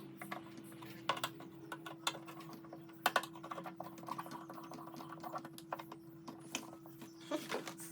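Light, irregular clicks and taps of plastic housing parts being handled and fitted together, over a faint steady hum.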